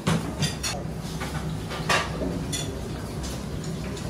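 Plates and cutlery clinking: a handful of separate sharp clinks of crockery over a steady low background hum.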